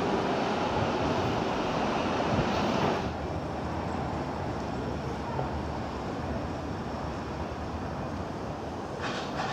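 Steady rush of road traffic on a busy city street, dropping to a lower level about three seconds in. A short, higher hiss near the end.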